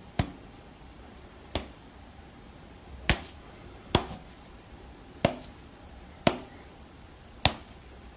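A cat's paw slapping at a person's hand: about eight short, sharp slaps, roughly one a second, over quiet room tone.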